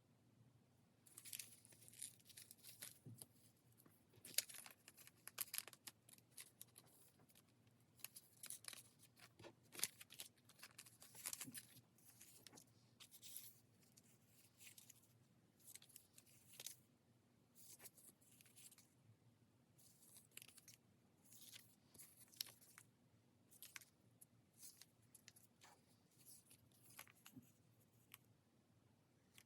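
Close-up paper crafting sounds on a desk: a quiet, irregular run of short, scratchy rasps, like paper or tape being torn, cut or peeled, several each second with brief pauses between.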